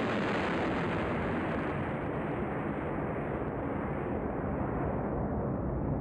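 High-power rocket motor roaring steadily in flight, its hiss thinning out gradually as the rocket climbs away.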